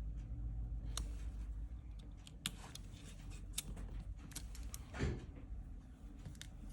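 Small scattered clicks and taps from handling a phone and small repair tools on a workbench, with one louder knock about five seconds in, over a low steady hum.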